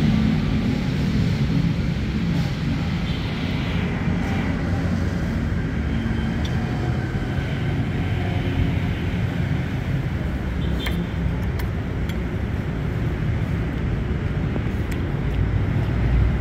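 Steady low rumble of background noise, with a few faint clicks a little past the middle.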